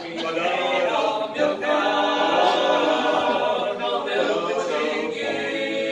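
Men's vocal quartet singing a cappella, several male voices holding chords together with no instruments.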